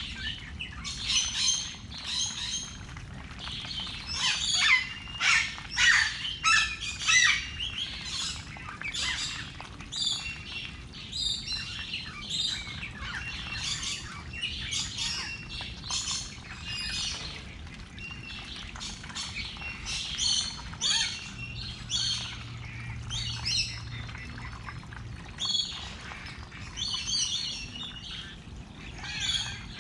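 Dense chatter of bird calls: many short squawks and chirps, one after another without a break, over a low steady hum.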